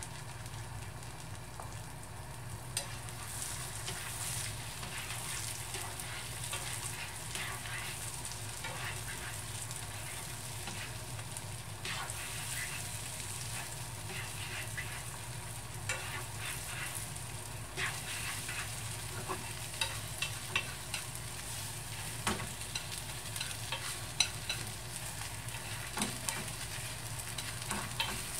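Beaten egg sizzling in butter in a nonstick frying pan as it is stirred with wooden chopsticks. Light taps and scrapes of the chopsticks on the pan come through the steady sizzle, more often in the second half as the omelette is gathered.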